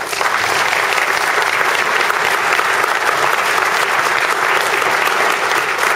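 Audience applauding a speech, a dense steady clapping that starts right after the closing thanks and keeps going.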